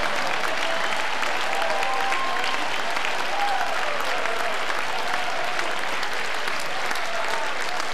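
A large convention-hall audience applauding steadily, with scattered voices and shouts over the clapping.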